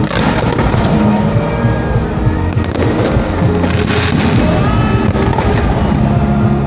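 Firecrackers going off in a dense, continuous crackle, with music playing alongside.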